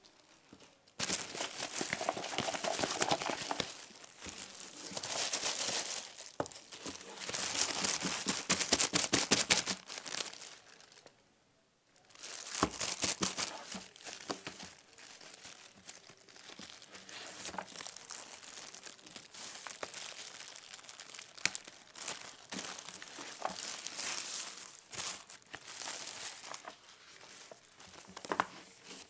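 Thin clear plastic packaging bags crinkling and rustling as hands pull and handle them around product boxes. The crinkling is loudest and densest for the first ten seconds. It stops briefly about eleven seconds in, then goes on softer and patchier, with sharp crackles.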